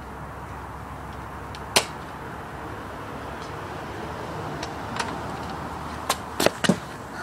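A Nerf Maverick spring blaster fires once with a single sharp click a little under two seconds in, over steady outdoor background hiss. Near the end come a few quick steps on patio paving.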